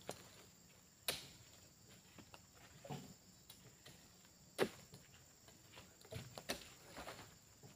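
Scattered short knocks and thuds at irregular intervals, the sharpest a little past halfway, over a faint steady high-pitched hum.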